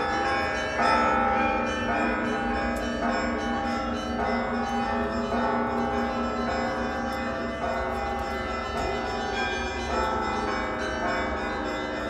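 Russian Orthodox church bells ringing a festive peal for a church procession: several bells struck over and over in quick, overlapping succession, their tones hanging and blending.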